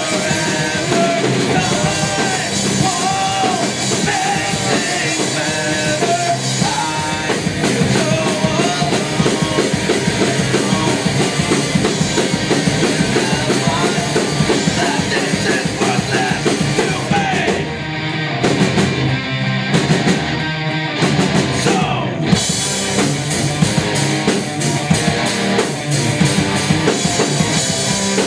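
Live rock band playing: electric guitars over a drum kit, loud and steady. The cymbals stop for a few seconds past the middle, then the full band comes back in.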